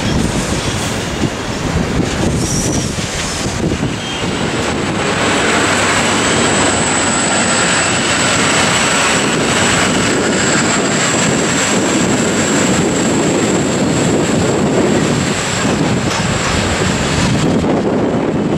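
An Endeavour-class diesel railcar pulling away from the platform and passing close beneath, its diesel engine running under power as it accelerates. A thin, steady, high whine joins the rumble about five seconds in and fades near the end.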